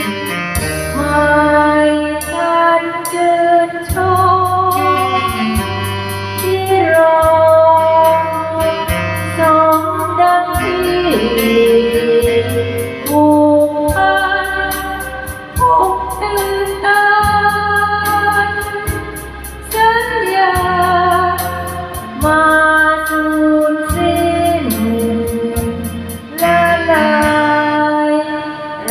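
A woman singing a slow Thai ballad into a microphone over a karaoke backing track, with held, wavering notes over a bass line and a steady ticking cymbal beat.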